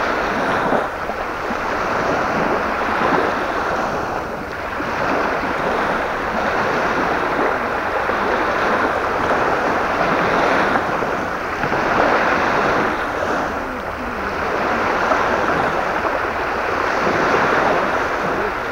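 Strong gusty wind rushing over the microphone together with waves on the water, a loud steady rush that swells and eases every few seconds.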